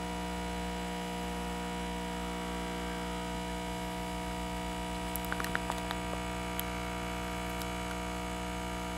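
BlackJack BK4050 hot air rework station's blower running steadily with a constant hum, during the low-temperature preheat stage of a BGA reflow. A few light clicks and knocks come about five to six and a half seconds in.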